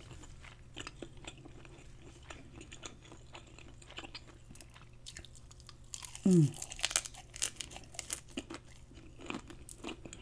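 Close-up eating sounds: soft mouth and chewing clicks, then about six seconds in a loud crunchy bite into batter-fried shrimp, with a short falling 'mm', followed by several seconds of crisp crunching chews.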